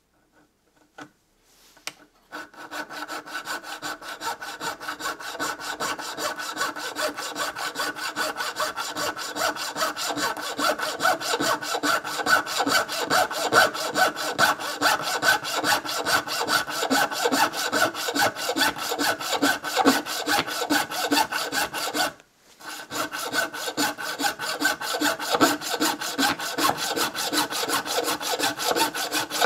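Mini hacksaw cutting a metal eccentric strap in half: fast, even back-and-forth sawing strokes that start about two seconds in, stop briefly about three-quarters of the way through, then carry on.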